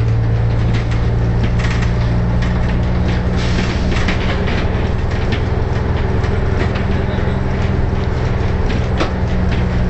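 Leyland Titan double-decker bus engine running at a steady drone, with frequent light rattles and knocks from the bodywork over it.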